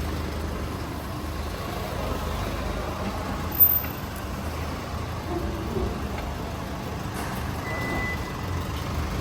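Chevrolet S10 pickup running at low speed with a steady low rumble. A short, sharp noise comes about three and a half seconds in, and a brief high beep comes near eight seconds.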